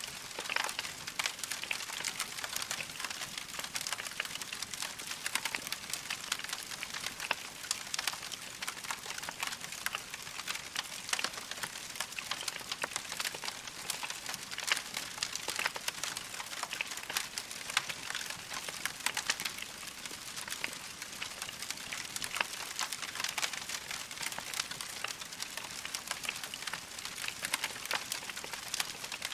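Wood fire crackling in a fireplace: a steady dense stream of small pops and snaps over a soft hiss.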